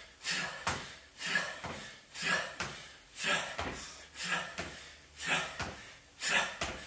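A man breathing hard in time with jump squats, one sharp, hissing exhale about every second, with faint thuds of his trainers landing on a tiled floor.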